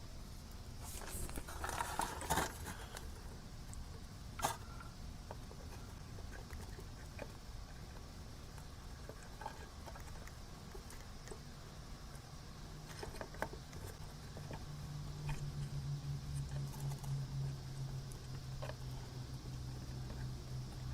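Soldering work on a small radio circuit board: faint scattered clicks and scrapes of the iron and tools against the board while cold solder joints are being reflowed. A low steady hum comes in about two-thirds of the way through.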